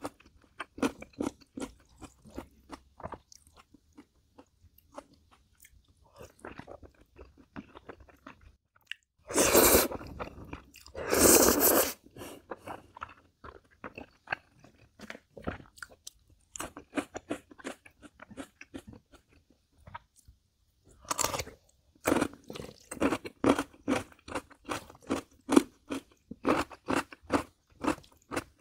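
Close-miked mukbang eating: crisp crunching and biting, many quick small crunches, with two louder, longer stretches of noise around ten and twelve seconds in and steady rhythmic chewing in the last third.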